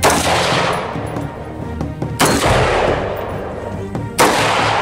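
Three AR-15 rifle shots about two seconds apart, each a sharp crack followed by a long echoing decay, over background music.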